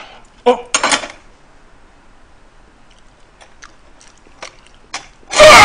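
A man's voice suddenly shouting in excitement near the end, loud enough to distort. A shorter, sharp burst of voice and noise comes about half a second in, with faint clicks between.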